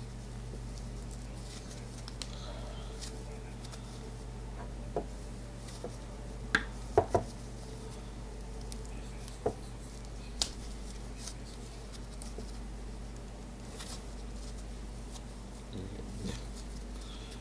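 Small clicks and taps of hand work with needle-nose pliers and a foam piece on an earphone, over a steady low electrical hum. The sharpest clicks come in a cluster around the middle.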